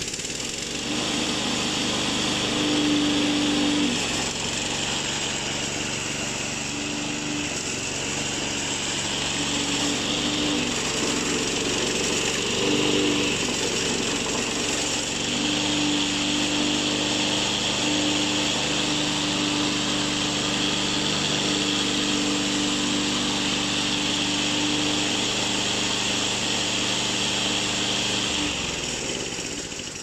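Petrol engine of a remote-controlled tracked slope mower running steadily, its pitch shifting a few times. Near the end it is stopped by the remote kill function and winds down.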